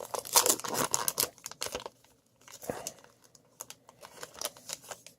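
Trading-card pack wrapper crinkling and tearing open for about the first two seconds, then fainter rustles and light clicks as the cards are handled.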